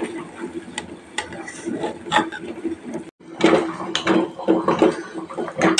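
A spoon scraping and clinking against metal cookware as cooked ghee rice is stirred and turned, in irregular scrapes and knocks. There is a short break about three seconds in, and the scraping and knocking are louder after it.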